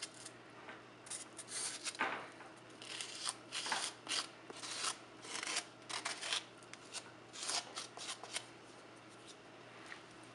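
Irregular scraping and rubbing strokes of frosting being spread over a styrofoam half-ball, thinning out near the end.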